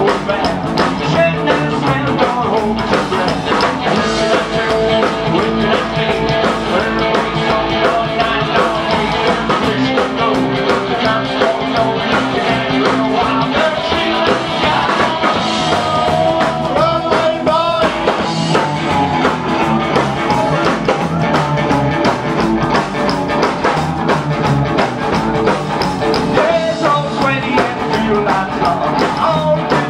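Rockabilly band playing live: a man singing lead over hollow-body electric guitar and the rest of the band, with a steady driving beat.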